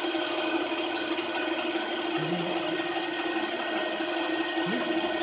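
Friction stir welding machine running steadily, its spindle turning the tool through the joint between AA6061 aluminium alloy and AZ31B magnesium alloy plates: a steady hum with a strong low tone and several higher tones. Two short high ticks about two and three seconds in.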